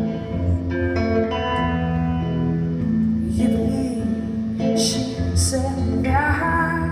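Live song: a woman singing to her own electric guitar, with ringing, held guitar chords in a reverberant hall. Her voice wavers up in pitch near the end.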